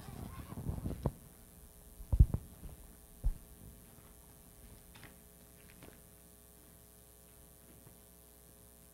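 Steady electrical mains hum through the sound system, with a few low handling thumps and rubs on a handheld microphone in the first few seconds, then faint rustles, as notes are searched through.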